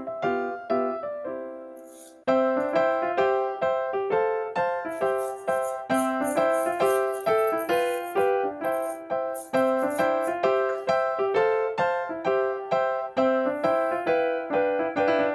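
Background music: a bright, bouncy keyboard tune of quick, evenly paced notes. It fades out about two seconds in and starts again, with short bursts of shaker-like hiss at times.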